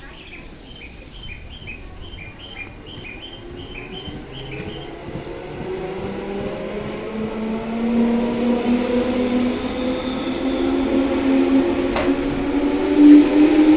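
JR 211-series electric train pulling away from the platform: its motor and gear hum rises steadily in pitch and grows louder as it gathers speed. A single sharp click comes about twelve seconds in, and a repeated high electronic chirping is heard in the first few seconds.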